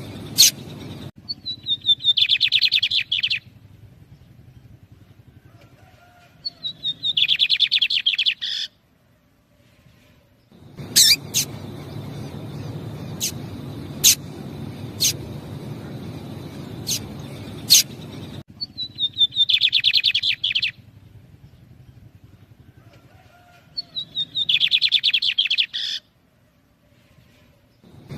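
A pair of lined seedeaters (bigodinhos) calling: four bursts of rapid chattering song, each about two seconds long, with sharp single call notes in between, over a low steady hiss.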